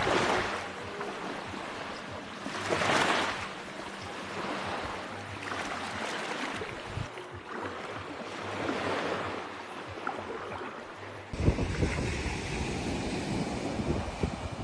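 Sea waves breaking and washing onto a beach, swelling about every three seconds. A little past eleven seconds the sound changes suddenly to a deeper, steadier wash, with wind on the microphone.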